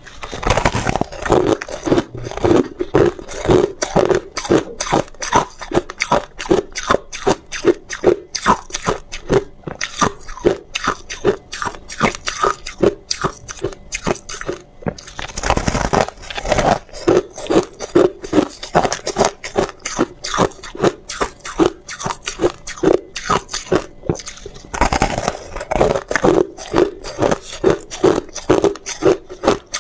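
A person biting and chewing a hard block of frosty ice close to the microphone: a rapid run of crisp crunches, about three a second. Louder bite-throughs come near the start, about sixteen seconds in, and about twenty-five seconds in.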